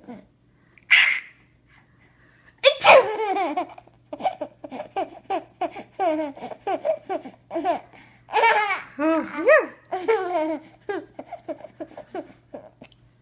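A young child laughing hard at a sneeze. A short, sharp sneeze comes about a second in, then a loud burst of high-pitched laughter just under three seconds in. The laughter carries on in many short repeated bursts until shortly before the end.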